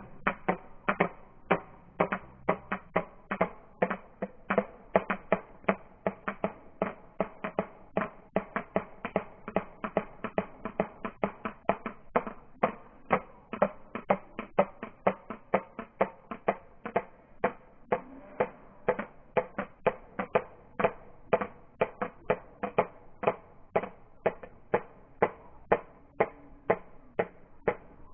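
White stork clattering its bill, slowed down: a long, even run of sharp wooden clacks, about two a second.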